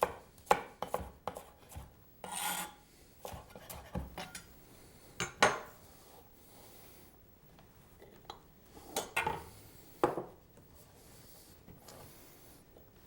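Kitchen knife cutting stacked carrot slices into julienne strips on a cutting board: irregular knife knocks and short scrapes with handling noises, the loudest knocks about half a second in, around five and a half seconds in, and around nine to ten seconds in.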